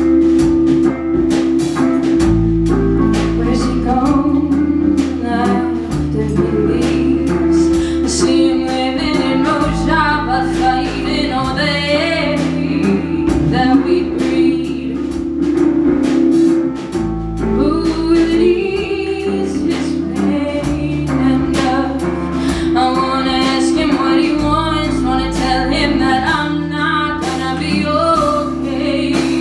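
Live band playing a song: a woman singing lead over electric guitar, bass guitar and a drum kit keeping a steady beat.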